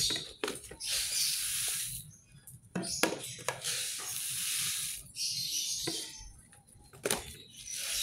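Loose birdseed being scooped and poured in plastic bowls and containers: several hissing, rattling runs of small grains, each a second or two long, with light plastic clicks between them.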